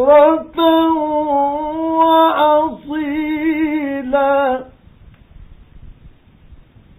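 A male Qur'an reciter in the melodic mujawwad style draws out the closing words of a verse in long, ornamented held notes with brief breaths between phrases. The voice stops about four and a half seconds in, leaving only the faint hiss of an old, narrow-band radio recording.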